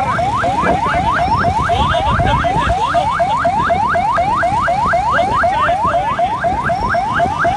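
Electronic alarm siren repeating a rapid rising whoop, about four a second, over a low rumble of street traffic.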